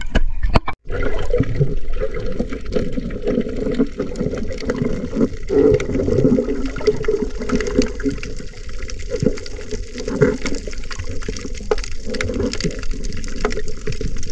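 Muffled underwater sound of the camera submerged over a shallow coral reef: water sloshing and gurgling, with scattered faint clicks.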